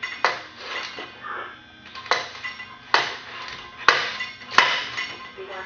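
The engine of a 1944 Titan Model E chainsaw being pulled over by hand, about once a second. Each pull gives a sharp metallic clank followed by a short ringing tone, and the engine does not fire.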